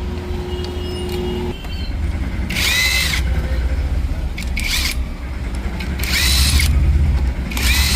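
Impact gun run in four short whirring bursts, undoing the nuts of a scooter's clutch-side cover plate, over a steady low hum.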